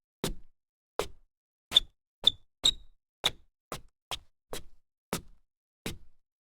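A series of sharp knocks, about a dozen at an uneven pace of roughly two a second, each short and dying away quickly, with silence between them.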